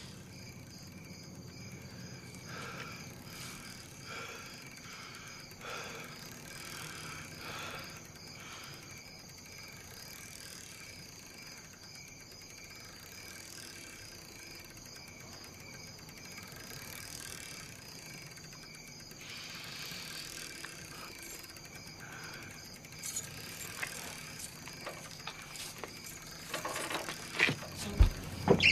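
Crickets chirping in a steady, pulsing night chorus. In the last few seconds scattered knocks and thuds come in, growing louder, ending with a sharp thump.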